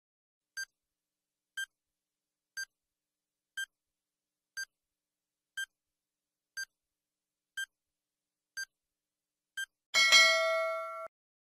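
Quiz countdown timer sound effect: ten short high beeps, one a second, counting down, then a louder time's-up alarm tone of several notes lasting about a second that cuts off sharply.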